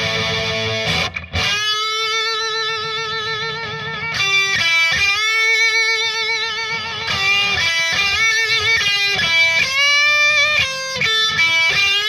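Electric guitar played through a Marshall DSL40C valve combo on its crunch channel with a Celestion Cream speaker, pushed into saturation by a Timmy overdrive pedal. Overdriven single-note lead lines with held notes and wide vibrato, after a brief break about a second in.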